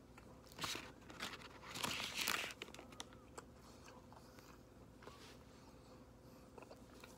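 A bite taken out of a sandwich, with a few short rustling, crunching noises in the first couple of seconds, then quiet chewing with faint mouth clicks.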